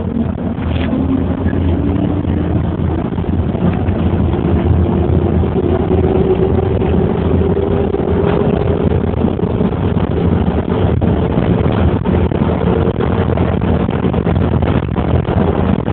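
Running noise inside a moving road vehicle: a steady engine or motor hum and road rumble, with a tone that slowly rises in pitch as it picks up speed, and a few brief rattles in the second half.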